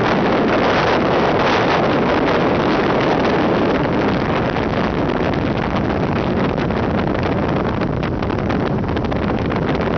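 Steady rush of wind over the microphone of a vehicle moving at road speed, mixed with engine and tyre noise, easing slightly in the second half.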